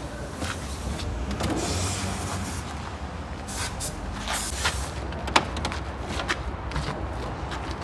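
Car seat being pulled out through the door opening and handled: the upholstery and frame scrape and rustle against the door, with scattered clicks and knocks and one sharper knock about five seconds in.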